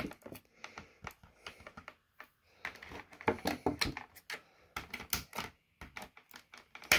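Clear plastic packaging crinkling and clicking in irregular small bursts as it is handled, with scissors cutting a twist tie.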